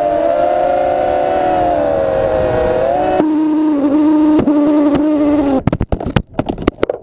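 Brushless motors and props of an FPV racing quadcopter (RCX 2206 1950 kV motors), heard from its onboard camera, whining at steady throttle with slight pitch wavers. About three seconds in the whine drops to a lower steady pitch. Near the end it breaks into short choppy bursts as the throttle is chopped and blipped.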